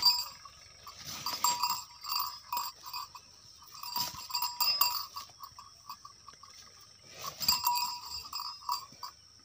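Small metal bells on a bull's neck and head gear jingling in irregular shakes as the bull tosses its head, with quiet gaps between the bouts.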